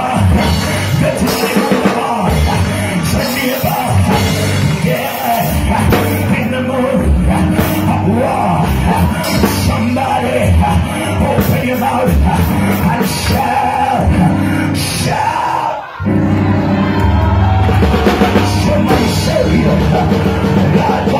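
Loud live church praise music: a band with a drum kit playing under singing and shouting voices, with a brief break about three-quarters of the way through.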